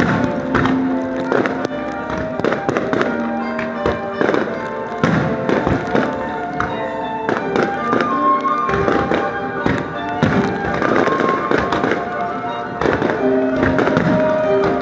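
Fireworks bursting in a quick run of sharp bangs, one shell after another, over music playing with the display.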